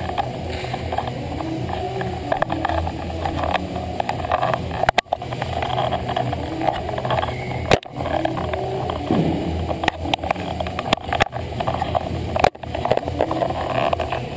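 Indoor ice rink din during a youth hockey game: a steady low hum with skates scraping on the ice, broken by a few sharp knocks as the goal camera is handled and settled.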